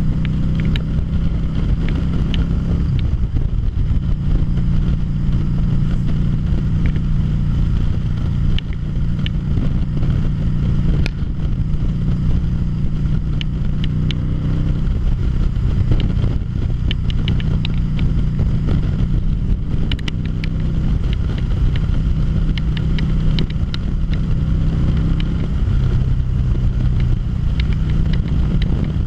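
A 2013 Harley-Davidson V-Rod Muscle's liquid-cooled V-twin running steadily at cruising speed, heard from the rider's seat with wind rushing over the microphone.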